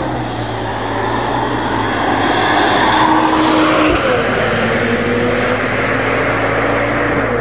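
Ferrari 296 GTB's twin-turbo V6 running at low revs as the car drives slowly past. It gets louder toward the middle, and the engine note changes abruptly with a short low knock about four seconds in.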